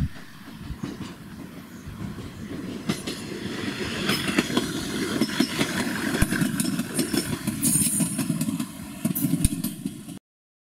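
A HIGH RAIL 1375 diesel railcar set (rebuilt KiHa 110-series cars) runs past slowly over pointwork. The diesel engine drones under wheels clattering over rail joints and switches, with a brief high wheel squeal near the end. The sound stops abruptly just before the end.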